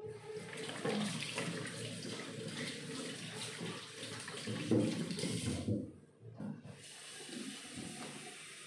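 Kitchen tap running into a metal sink, the water splashing. It cuts off about six seconds in, and a fainter hiss follows.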